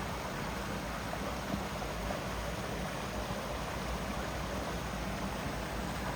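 A small creek waterfall running, a steady, even rush of water.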